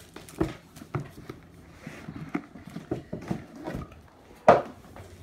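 Cardboard board-game box being handled and its lid pulled off: a run of light knocks and scrapes, with one louder thump about four and a half seconds in as the box is set down.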